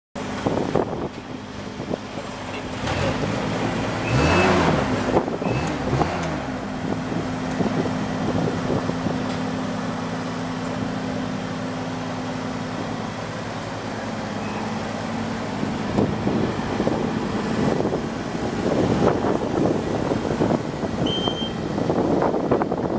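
Skyjack SJ6826 RT rough-terrain scissor lift's engine running steadily, its pitch dipping and recovering twice about four seconds in, with a few short high beeps. In the last third the sound turns rougher and louder as the lift works.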